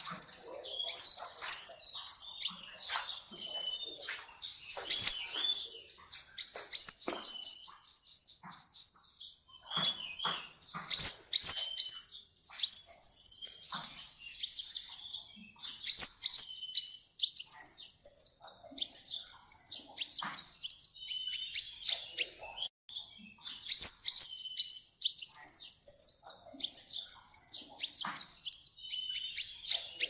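Kolibri ninja sunbird singing a fast, varied, high-pitched song of chirps and trills in bursts with short gaps, including a rapid, even trill about seven seconds in. The song is full of fill-in phrases ('full isian').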